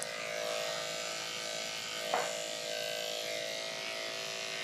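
Electric dog grooming clippers running steadily, a buzzing hum with a hiss, with a brief tap about two seconds in.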